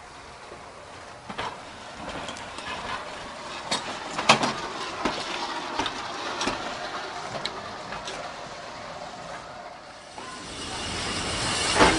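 Small industrial steam tank locomotive moving slowly, with scattered metallic clanks. About ten seconds in, a steady hiss of escaping steam rises, and a loud clank comes near the end.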